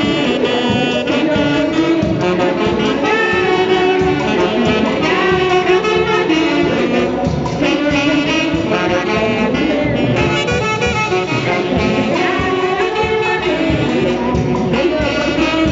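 An orchestra of the Mantaro valley type playing music, with saxophones and other horns carrying the melody over a steady beat.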